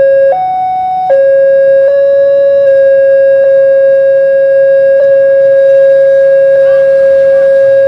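Railway level-crossing electronic alarm sounding one continuous steady tone instead of its usual pattern, stepping briefly up in pitch about half a second in and dropping back a moment later. The alarm is malfunctioning.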